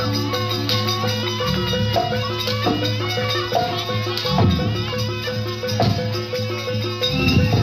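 Live jaranan gamelan music: mallet-struck metallophone notes repeating over a sustained low gong-like tone, with drum strokes now and then.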